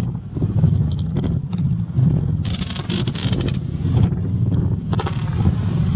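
Strong wind buffeting the microphone, with about a second of loud hissing near the middle as a firework launches.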